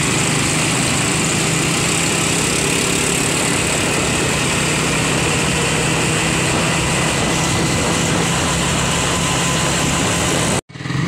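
Motorcycle engine of a passenger tricycle running steadily at road speed, heard from the sidecar with wind and road noise over it. The sound cuts off suddenly near the end.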